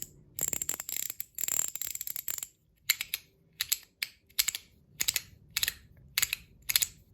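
Zirconium YEDC ratchet/haptic fidget coin clicking as it is turned by hand. A fast run of clicks comes first, then slower separate clicks, several a second.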